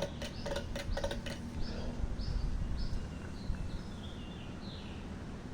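Outdoor ceiling fan running on high with a low steady hum, with a few light clicks in the first second and a half. Birds chirp in short, repeated high notes over it.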